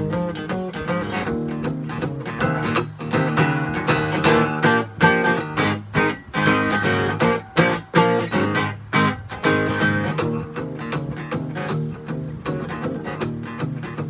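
Acoustic guitar strummed and picked in a blues instrumental break, with rapid strokes that are busiest in the middle.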